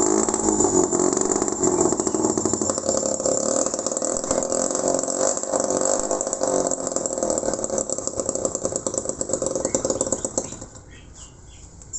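Homemade mini two-stroke engine built from a used refrigerator compressor, running fast with a buzzy rattle; its pitch falls at first, then holds steady, and it stops about ten and a half seconds in.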